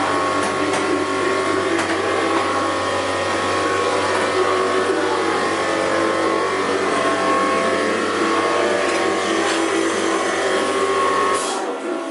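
A steady machine drone, like a motor running continuously, with held tones over it. It cuts off suddenly about a second before the end.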